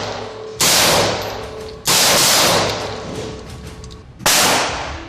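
Three single gunshots, about a second and then two and a half seconds apart, each loud and sharp and ringing away for about a second.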